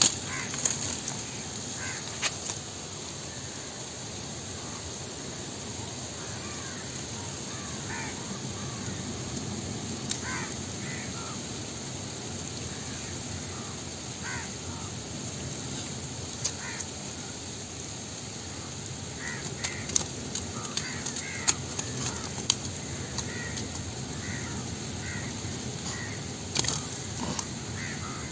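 Crows cawing now and then, in short harsh calls that come thickest about two-thirds of the way through, over a steady outdoor background, with a few sharp clicks.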